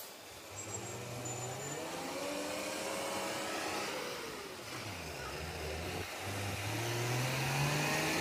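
Diesel engine of a loaded multi-axle truck accelerating as it pulls away, its pitch rising. The note drops about five seconds in, then climbs again.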